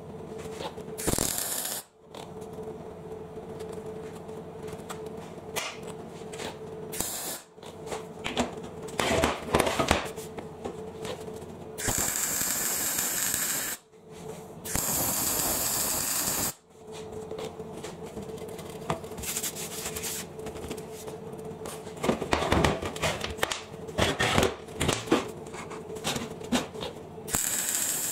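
MIG welder laying short welds on steel box-section tube: bursts of steady arc crackle and hiss, the longest about two seconds each, with a steady hum and scattered knocks in the gaps between welds.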